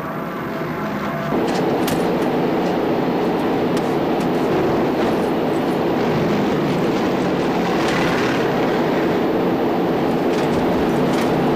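Steady drone of a B-17 bomber's four radial piston engines in flight. About a second in, the sound steps up louder and fuller as it is heard from inside the aircraft.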